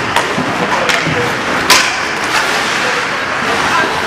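Ice hockey play: skates scraping on the ice and a few sharp clacks of stick on puck, the loudest a little under two seconds in.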